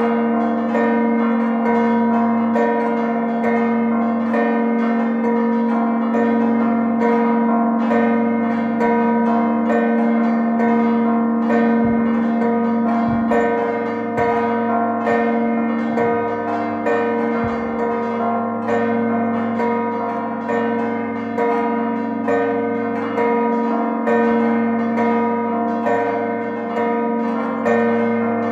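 Six church bells ringing a festive peal that closes the feast. Strokes come in quick, continuous succession, and their tones ring on and overlap.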